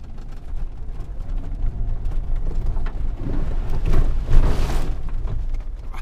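A Jeep drives through a large puddle: a steady low vehicle rumble, building to a loud rush of muddy water splashing over the hood and windshield about four seconds in.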